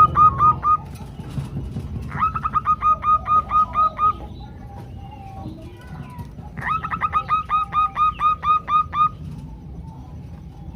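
Female zebra doves (perkutut) calling in runs of rapid, short, evenly spaced notes, about five a second. One run ends just after the start, another comes about two seconds in and a third about seven seconds in, over a steady low hum.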